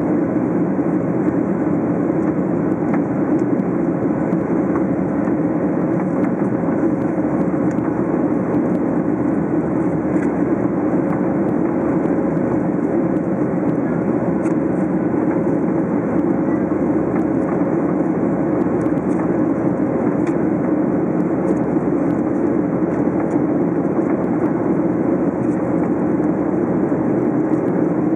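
Steady cabin noise of a Boeing 737-800 climbing out: the CFM56-7B engines and the rush of air over the fuselage, heard from a window seat, with a thin steady hum running through it.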